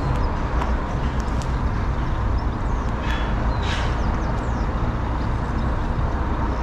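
Street traffic: a van's engine running as it creeps slowly along the road, over a steady low rumble.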